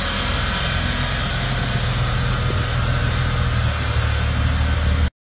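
Articulated city bus's diesel engine running steadily, a low drone, cutting off abruptly near the end.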